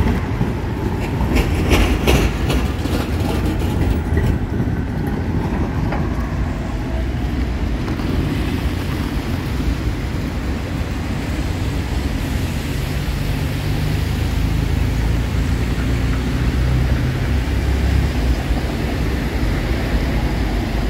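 Light-rail tram wheels clicking over rail joints for the first few seconds, then steady city street noise with a low rumble.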